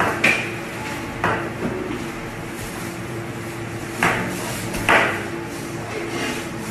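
Kitchen knife chopping through raw beef and striking a plastic cutting board: about six sharp knocks at irregular intervals, over a steady background hum.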